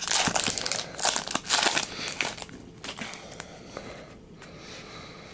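Foil wrapper of a trading-card pack crinkling as it is handled and opened. Loud crinkling for about the first two seconds, then fainter scattered rustles that die away.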